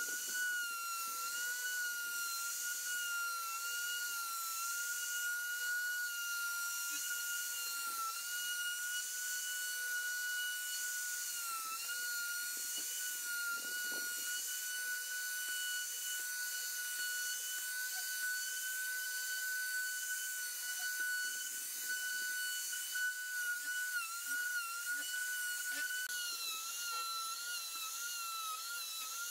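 Electric plunge router running at full speed in a planing sled as it surfaces a board: a steady high whine whose pitch dips slightly now and then as the bit takes load, and wavers more near the end.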